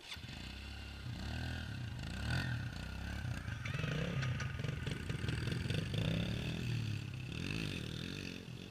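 A small dirt bike engine starts close by, then revs up and down several times as the bike pulls away, fading near the end.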